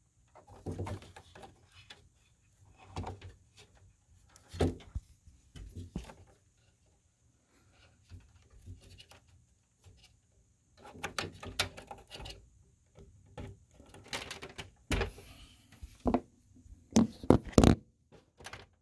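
Irregular clicks, knocks and rustling of hands reconnecting the CPU's power cable in a desktop computer, with a cluster of sharper knocks near the end.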